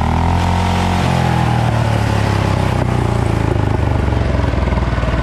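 A Cub Cadet 122 mud-mower garden tractor's engine running. Its revs fall during the first second, then it runs on steadily, settling into an even, pulsing idle near the end.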